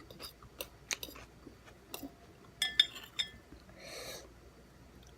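Light clicks and clinks of cutlery against a dish during eating, with a soft breath about four seconds in.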